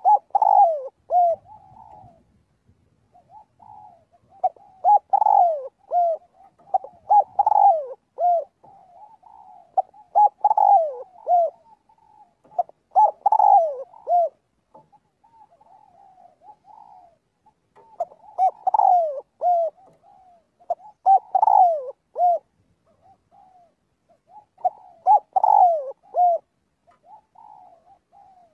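Spotted dove cooing: repeated phrases of short falling coos, in clusters every few seconds with brief pauses between.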